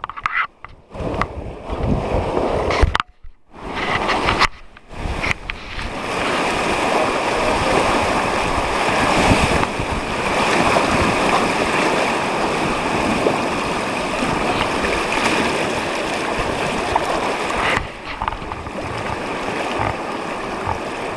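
Whitewater rapids rushing and splashing around a river raft. The sound is choppy, with a few short dropouts over the first five seconds, then settles into a steady, loud rush of water.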